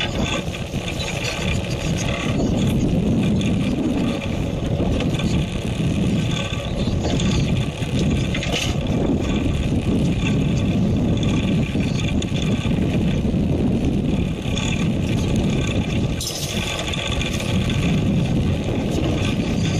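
Fishing boat at sea: steady low rumble of the boat's engine and the wash of the sea against the hull, with a couple of brief knocks.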